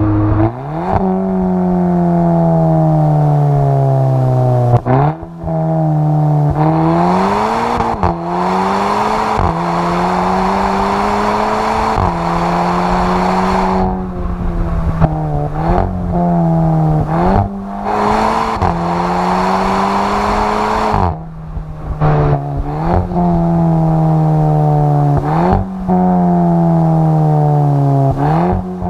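Volkswagen Scirocco R's turbocharged four-cylinder exhaust heard right at the tailpipe while driving. The engine note sinks slowly off the throttle, then jumps up sharply several times as the car changes down a gear, with stretches of steady running in between.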